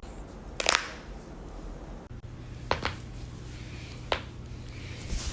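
Human joints cracking, probably a neck or knuckles: a quick run of sharp pops a little over half a second in, a double pop before the middle, and single cracks about four seconds in and near the end.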